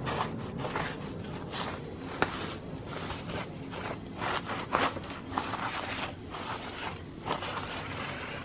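Cloth rag rubbing and wiping across the freshly resurfaced aluminium deck of a Toyota 2JZ cylinder head, wiping off WD-40 in irregular strokes a few times a second, with a couple of sharp clicks.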